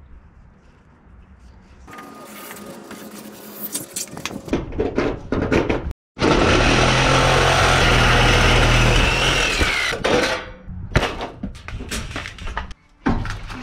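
Cordless jigsaw cutting a round hole through corrugated sheet-metal roofing, the blade rasping through the thin steel. It starts about two seconds in, runs loudest and steadiest through the middle, then cuts in and out in short pieces near the end.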